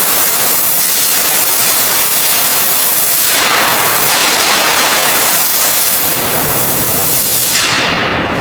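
A loud, steady hiss of a high-pressure spray jet, swelling briefly a few times as it sweeps.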